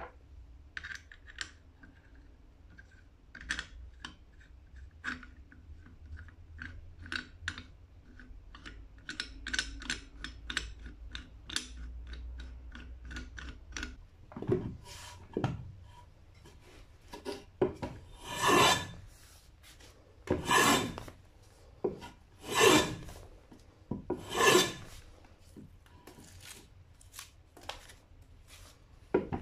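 Cast-iron hand plane shaving a round wooden pole: from about halfway, a run of scraping cutting strokes, the loudest about every two seconds. The first half holds scattered light clicks and taps.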